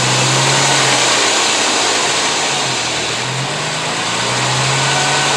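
Vehicle running with its driveline turning, a steady hum with a low drone that swells and fades a few times; the humming and vibration are being traced to a bad driveshaft U-joint.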